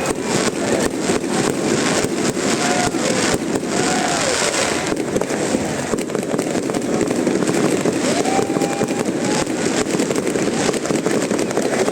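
New Year fireworks going off in many rapid pops and bangs over the steady noise of a large crowd.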